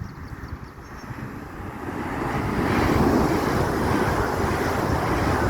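LNER Class 801 Azuma electric train passing through at speed: a rushing noise that builds over the first couple of seconds, then holds loud and steady.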